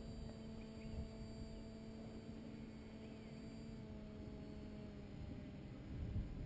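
Distant paramotor engine droning steadily overhead, its pitch sagging slightly about four seconds in, with low wind rumble on the microphone.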